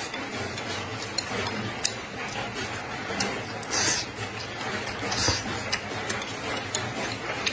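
Close-up eating sounds: a man chewing charred green chili peppers and rice, with scattered clicks of chopsticks against the plate and short wet bursts of mouth noise, over a steady background hiss.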